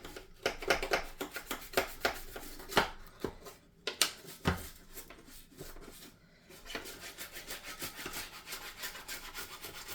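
A brush scrubbing the plastic softener compartment of a washing machine detergent drawer: rapid rubbing strokes with a few sharper knocks, easing off briefly twice.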